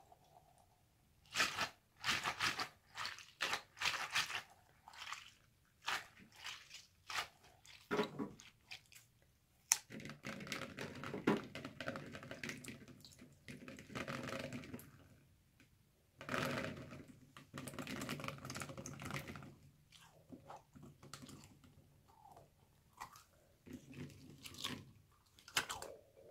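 Rubber stress ball and water beads squished and handled by hand over a steel bowl: wet squelching and crunching, first as a run of short separate squeezes, then two longer stretches of dense crunching, and a few more squeezes near the end.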